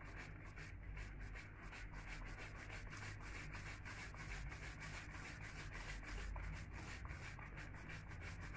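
White plastic bottle of homemade carbonated doogh (yogurt drink) shaken hard up and down, giving a faint rhythmic rubbing and swishing of about four to five strokes a second.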